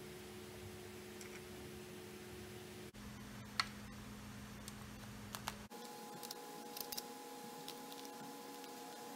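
A few light clicks and ticks of small parts, wires and tools being handled on a metal-cased switching power supply, over a faint steady hum. One sharper click comes about three and a half seconds in, and a small cluster follows near seven seconds.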